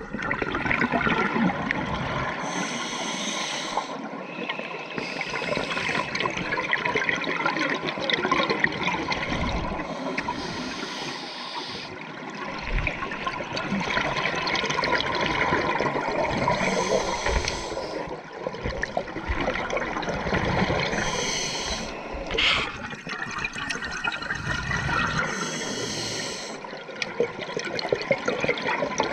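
Scuba diver's regulator breathing underwater, heard through a GoPro dive housing: exhaled bubbles gurgling and rushing, with a short hiss every few seconds.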